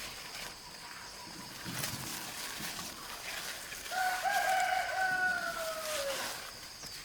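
A rooster crows once, a single call of about two seconds that trails down in pitch at the end.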